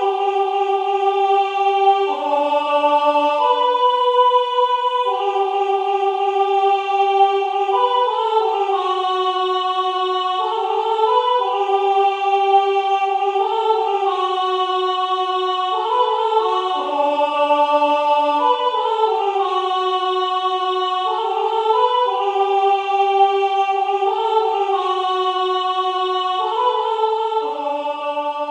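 MIDI playback of a three-part choir song, the mezzo-soprano rehearsal track: synthesized, evenly held notes in several voices moving together in slow steps, closing on a held final chord near the end.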